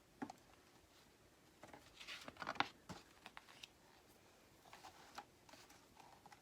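Faint handling of a paper picture book as a page is turned: soft rustling and a few light taps, the loudest about two and a half seconds in.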